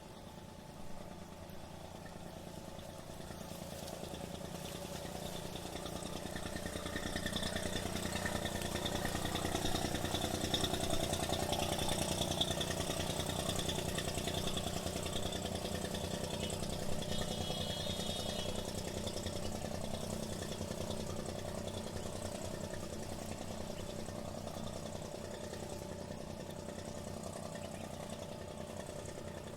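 An engine running with a low, pulsing hum that grows louder over several seconds, is loudest about ten to thirteen seconds in, then slowly fades as it passes by.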